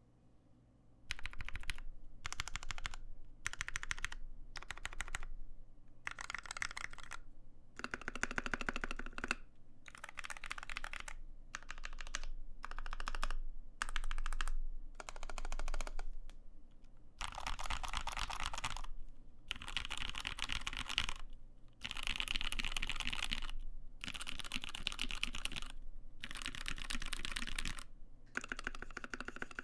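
Typing on a Satisfaction 75 mechanical keyboard with Krytox-lubed Zeal Tealios V2 linear switches, a carbon fiber plate and GMK keycaps. The typing comes in bursts of a second or two with short pauses between, starting about a second in.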